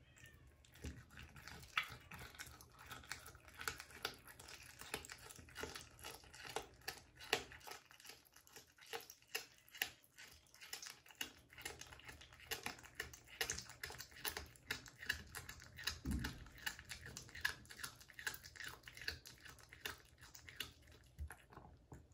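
Domestic cat chewing a raw duck foot: a quick, irregular run of crunches and wet clicks from teeth working on skin and small bones.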